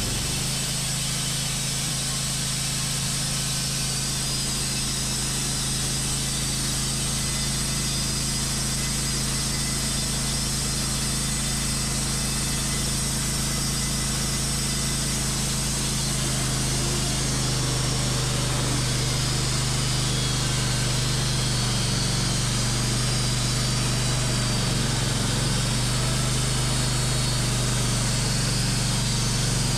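Wood-Mizer LT15 portable band sawmill running steadily while its band blade saws a 6/4 board from a maple log. It is a constant motor hum with a hiss over it, and the hum rises slightly in pitch about halfway through.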